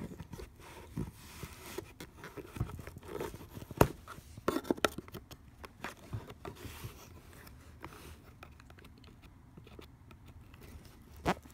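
Scraping and tearing at the holographic tamper seal on a sealed cardboard card box, with scattered sharp clicks and knocks of handling. The scratching dies down about two thirds of the way through.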